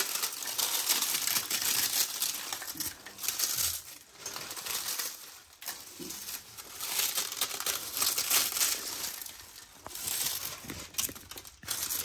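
Crisp fried papad crackling and snapping as it is crumbled by hand into small pieces, in bursts with short pauses.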